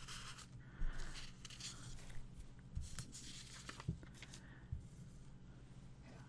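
Quiet room tone: a steady low hum with a few soft clicks and rustles, the loudest about a second in.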